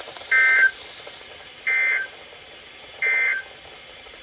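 Emergency Alert System end-of-message code: three short bursts of SAME digital data tones, about 1.4 s apart, over faint broadcast hiss, marking the end of the alert.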